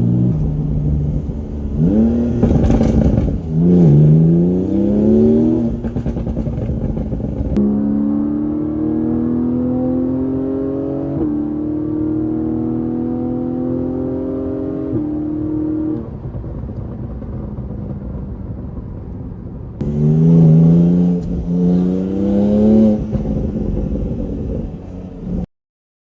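Porsche 718 Boxster GTS 4.0's naturally aspirated flat-six exhaust under acceleration: several pulls where the engine note climbs steeply, a long slower climb through the revs, and a steadier lower cruise, with sharp pops and crackles near the rev peaks. The sound cuts off suddenly near the end.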